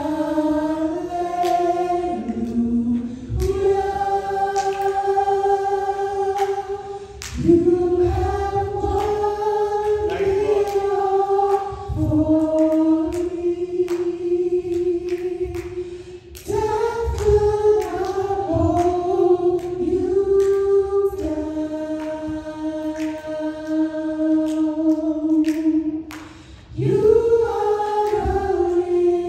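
Gospel worship choir singing in harmony, led by a male singer on a handheld microphone, holding long notes in phrases of several seconds with short breaks between them.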